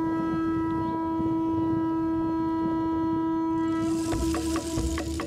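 Music: one long, steady held note on a horn-like wind instrument, then quick, evenly spaced percussion hits come in about four seconds in.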